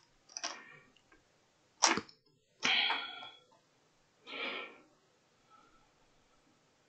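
A person's short non-speech vocal noises: a sharp burst about two seconds in, followed straight away by a longer breathy one, with a softer breathy puff near the middle.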